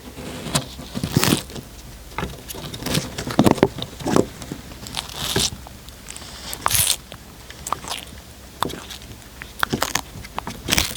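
A cat chewing and crunching food close to the microphone: irregular crunches and small clicks, with a few louder bites spread through.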